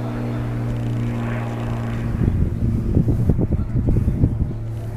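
A steady mechanical hum: a low drone with several evenly spaced overtones. From about two seconds in, irregular low thumping and rumbling joins it for about two seconds, then dies away.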